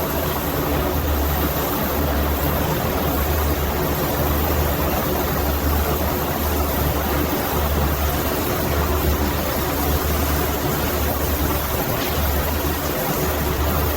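Heavy factory machinery running steadily: a strong low hum with an even hiss over it, without a break.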